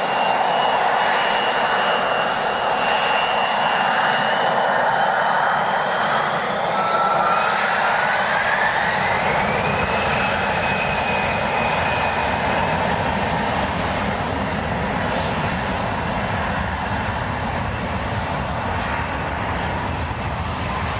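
Airliner jet engines running with a steady roar and a high whine; about a third of the way in, the whine rises in pitch over a few seconds and then holds steady.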